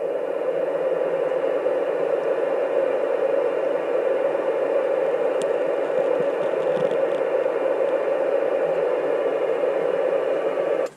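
Ham radio receiver putting out steady static hiss, an open channel with no signal on it, cutting off abruptly at the very end.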